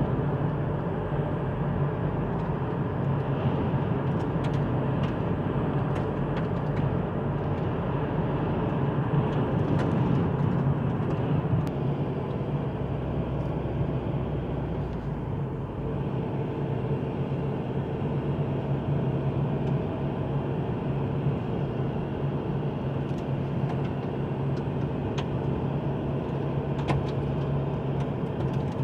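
Steady hum and road noise inside a moving car's cabin.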